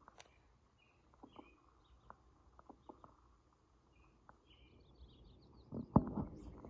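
Songbirds chirping faintly in short, scattered calls, with a quick run of high notes past the middle, over light clicking. Near the end, a louder cluster of thumps and rustling close by.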